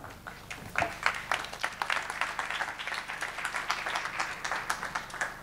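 An audience clapping for about five seconds, a dense patter of many hands that starts under a second in and dies away near the end.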